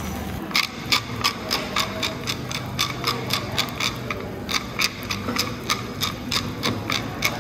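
Pepper mill being twisted, a steady run of crunching clicks about three a second that starts about half a second in.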